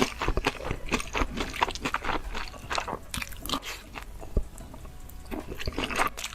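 A person chewing and crunching food in a rapid run of sharp clicks, which thin out about halfway and pick up again near the end.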